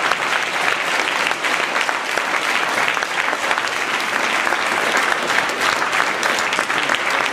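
Roomful of people applauding: many hands clapping steadily, at an even level throughout.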